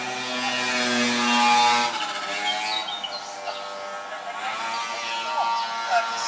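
Audio of an outdoor YouTube clip played through a phone's small loudspeaker: a steady motor-like hum with a few short chirps over it.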